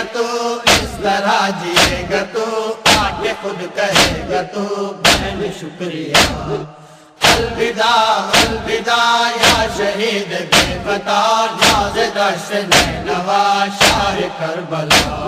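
A male voice chanting a Muharram lament for the martyrs of Karbala over a heavy, steady drum beat of about two hits a second. The music briefly drops out about seven seconds in.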